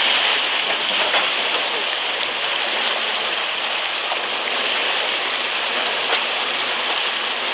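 GAZelle van's tyres rolling through the water of a shallow ford on a dirt track: a steady splashing hiss of churned water.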